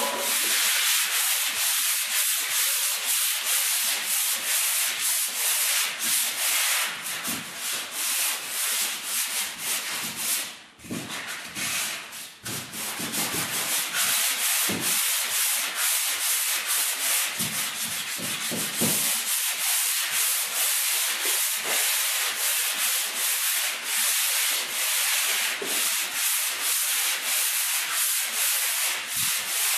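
Hand sanding of dried drywall joint compound with a handheld sanding block: quick, rhythmic rasping strokes up and down the wall to take down ridges in the mud. The strokes ease off briefly about ten seconds in, then carry on steadily.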